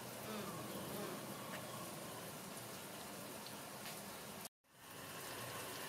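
Steady wet hiss of soapy water and lather as a baby monkey is washed by hand, broken once by a brief gap of silence a little after halfway.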